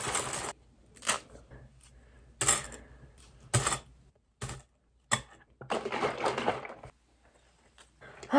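Dry cereal pouring from a plastic bag into a bowl, then scattered short clicks and rustles as a banana is sliced with a knife over the bowl.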